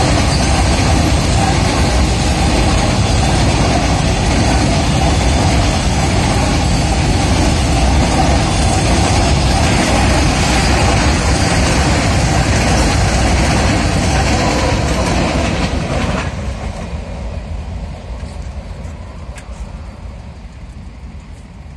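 Freight train of covered box wagons passing close by at high speed, a loud steady noise of wheels on the rails. About sixteen seconds in the last wagon goes by and the sound drops away and fades.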